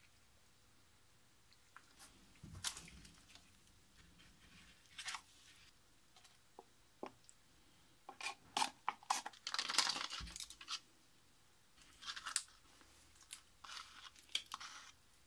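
Thick, pasty epoxy compound being stirred and scraped in a plastic cup with a stick and a spatula: scattered short scraping, squelching and clicking noises, busiest in the middle.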